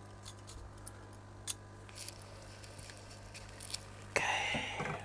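Small light clicks and taps of tweezers handling the thin metal shield of an iPhone 6 logic board, then a short, louder rasping noise about four seconds in, over a steady low hum.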